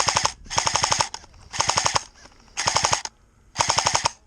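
Airsoft rifle firing five short full-auto bursts of rapid clicks, about half a second each with brief pauses between: covering fire.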